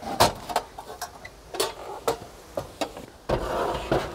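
A series of sharp clicks and knocks as metal pieces are handled and set down, then a hiss lasting under a second near the end.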